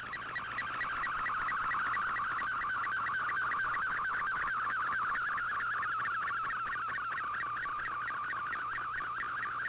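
Shortwave digital picture transmission (an Fldigi MFSK colour image) received in AM on an Icom IC-R8600: a steady warbling data tone with a regular tick about five times a second, carrying an image being decoded line by line.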